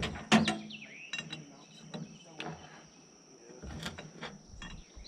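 Scattered metal clanks and clicks, the loudest about a third of a second in, over a steady high insect drone.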